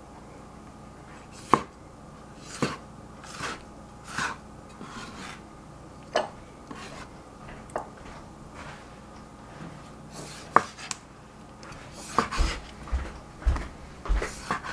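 Kitchen knife slicing tomatoes on a plastic cutting board: irregular taps of the blade against the board, coming faster and louder near the end.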